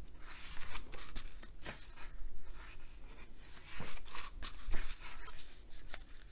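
Paper rustling and swishing as a page of a large hardcover art book is turned and smoothed flat, in a few irregular strokes with light ticks of hand on paper.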